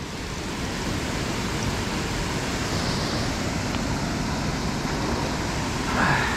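Steady rushing noise with no clear rhythm or tone.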